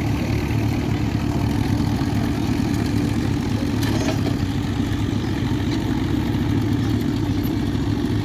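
Vintage grey Ferguson tractor's engine running steadily as it pulls a two-furrow mouldboard plough through the soil.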